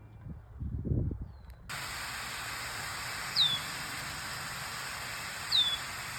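Outdoor sound: a brief low rumble, then from about a second and a half in a steady hiss that starts suddenly, with two short falling bird calls about two seconds apart.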